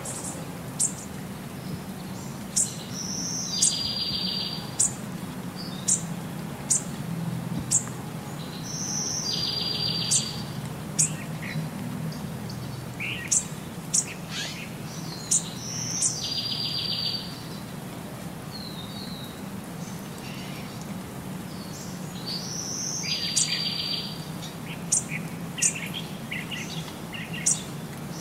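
Birds chirping and tweeting, a short pattern of calls that repeats about every six and a half seconds like a looped nature-sound track, over a steady low hum.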